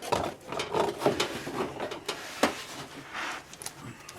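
Irregular clicks, knocks and scraping of plastic as a car's fender liner and its push-in fastener inserts are handled and worked into place.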